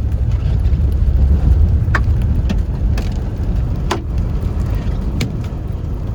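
Large hailstones striking the car's windshield and body, heard from inside the cabin as sharp single hits at irregular intervals, roughly once a second, over a steady low rumble of the car moving through the storm.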